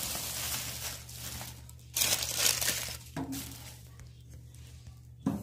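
Thin clear plastic film crinkling and tearing as it is peeled off a new mini oven, with the loudest rustle about two to three seconds in.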